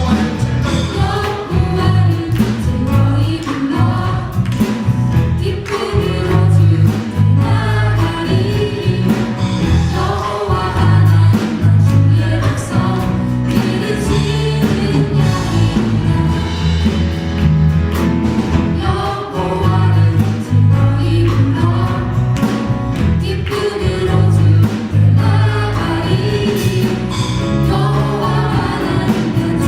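A church praise team and band performing a Korean worship song live: group singing over a strong bass and a steady drum beat.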